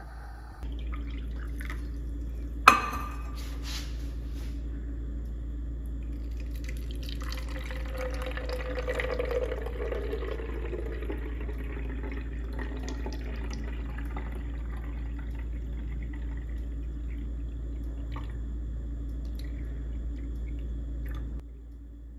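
Liquid poured from a plastic cup through a small funnel into a spray bottle, a steady trickle into the bottle. A single sharp click about three seconds in.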